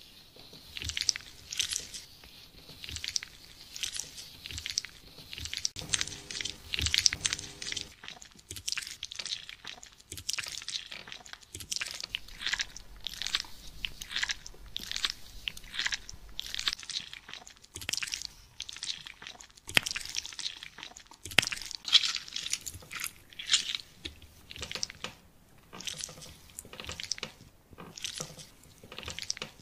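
Hands in clear disposable plastic gloves rubbing and kneading wet skin on the neck and shoulders, giving a steady run of short, crisp rubbing strokes, about two a second.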